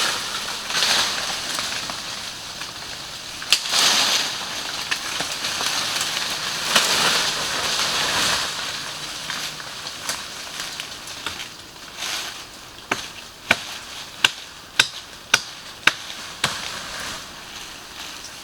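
Leaves and branches rustling and scraping as they are pulled and handled, then a run of sharp, evenly spaced chops into wood, about two a second, in the second half.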